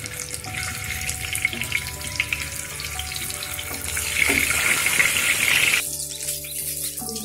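Salt-and-turmeric-coated boiled eggs frying in hot oil in a kadai: a crackling sizzle that gets louder about four seconds in as more eggs drop into the oil, then falls away sharply about six seconds in.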